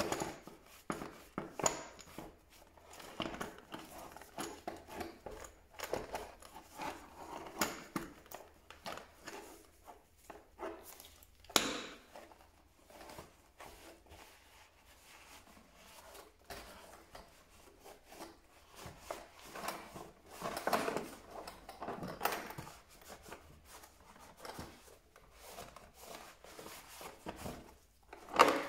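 Microfiber cloth rubbing and wiping the inside of a hard plastic tool case in irregular strokes, with one sharp knock about twelve seconds in.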